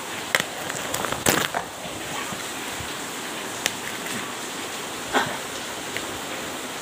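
Packing tape and cardboard being picked at and torn open by hand: scattered short crackles and rips, the loudest about a second in, over a steady background hiss.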